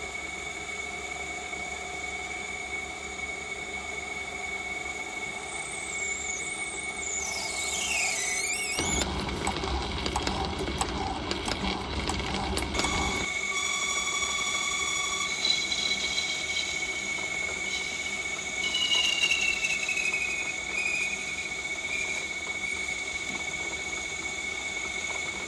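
Small metal lathe running with a steady whine while a twist drill in the tailstock chuck bores into the end of a spinning brass rod. Partway in the drill gives a squeal that falls in pitch, followed by a few seconds of louder, rougher cutting noise, and shorter falling squeals come later in the cut.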